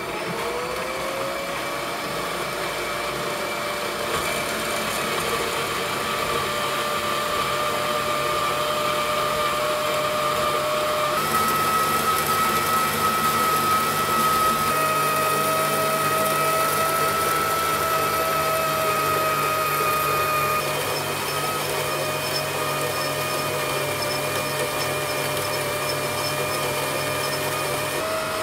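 Warco horizontal metal-cutting bandsaw starting up, its motor rising in pitch in the first second, then running steadily as the blade cuts down through an aluminium block held in the vise.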